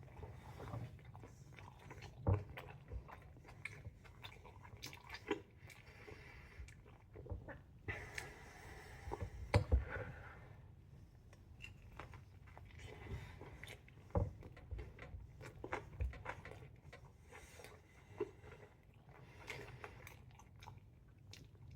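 Close-up chewing and biting of a Chicago-style hot dog: irregular wet mouth smacks and soft crunches, with the loudest clicks a little before the middle.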